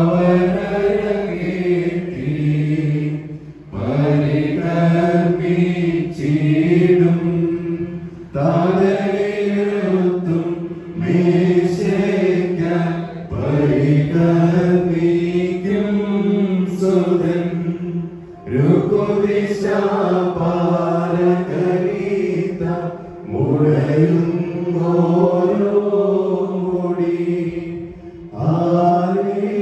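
A man chanting the liturgy in long, sustained melodic phrases a few seconds each, with short pauses for breath between them.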